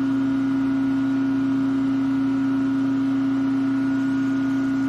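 Steady, unchanging low electrical hum from shop machinery.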